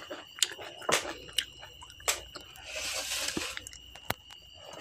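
Close-miked eating sounds: chewing with wet mouth clicks and smacks, and fingers squishing rice and mashkalai dal on a steel plate. A breathy hiss lasts a little under a second near the middle, over a faint steady high whine.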